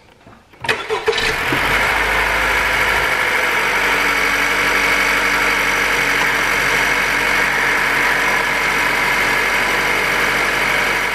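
A 2019 Honda CR-V's 1.5-litre turbocharged four-cylinder engine starts about a second in, flares briefly, then idles steadily. This is the first run after an oil and filter change, to fill the new oil filter.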